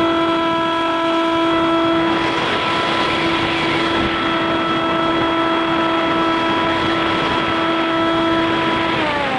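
RC plane's motor and propeller heard from on board, running at a steady pitch with wind rushing past, until the pitch drops near the end.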